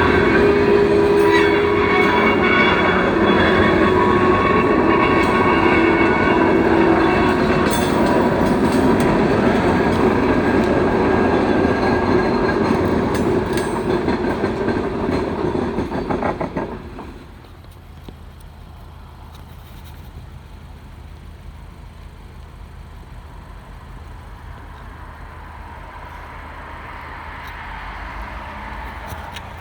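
Freight train passing close, a loud rumble of diesel locomotives and rail cars with steady high tones over it. About seventeen seconds in, the sound drops suddenly to a much quieter rumble that slowly swells again near the end.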